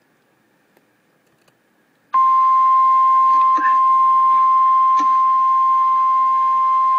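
The Emergency Alert System's single-pitch warning alarm tone, the NOAA Weather Radio 1050 Hz attention signal, comes on suddenly about two seconds in after near silence and holds steady and loud, announcing that a weather warning follows.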